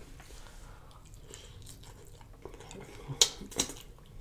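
Close-up eating sounds of fried catfish fillet: quiet chewing, then two sharp, clicking bites about three seconds in.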